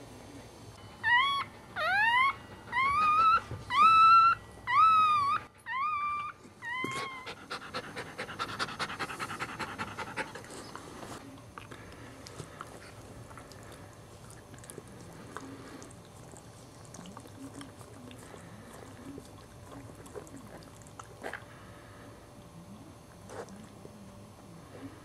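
Newborn Cairn Terrier puppy squealing: about eight short, high, rising squeals in quick succession over the first seven seconds. Then the mother dog's wet licking takes over, fast smacking and lapping at first, then softer scattered licks.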